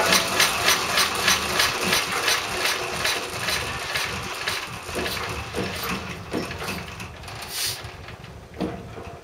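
A 1946 Lister D single-cylinder petrol engine on a cement mixer, running with even firing beats that grow weaker and slower and die away over several seconds, with one last thump near the end as it runs down.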